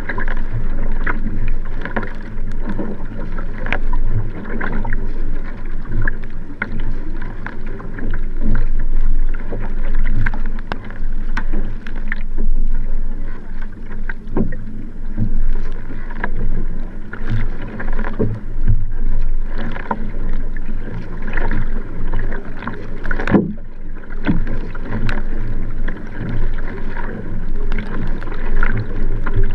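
Sprint kayak under race paddling, a Nelo Vanquish 3 K1. The paddle blades catch and splash in a quick, regular stroke rhythm over a steady rush of water along the hull, heard from the kayak's rear deck.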